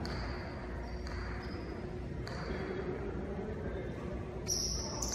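Jai alai pelota cracking against the fronton walls and cestas in play: several sharp hits a second or two apart, each with a short ringing echo in the large hall.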